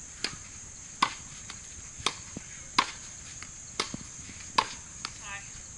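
Tennis balls being hit with rackets and bouncing on a hard court during a rally: a run of sharp pops, about one a second, some louder than others.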